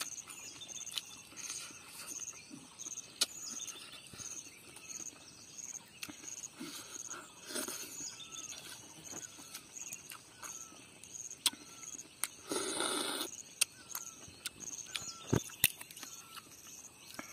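Close-miked eating sounds: lip smacks, chewing and the cracking of crab shell, with a louder slurp about 13 s in as a piece of crab is sucked. A bird calls with a short repeated chirp in the background, about once a second in the second half.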